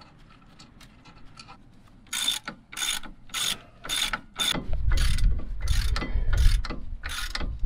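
Hand ratchet wrench driving in brake caliper bolts: a run of clicking ratchet strokes, about two a second, starting about two seconds in, with a low rumble under them in the second half.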